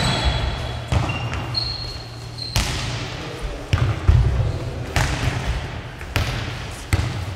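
Nohejbal ball being kicked and bouncing on a wooden sports-hall floor: sharp knocks about once a second, each ringing on in the large hall's echo. A few short high squeaks come between the knocks.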